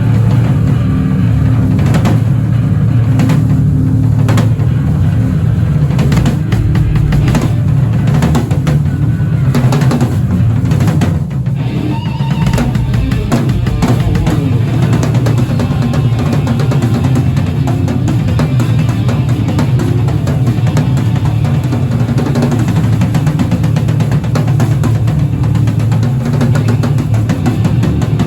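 Loud band music with the drum kit to the fore: frequent kick and snare hits over sustained low-pitched instruments, played live at a sound check.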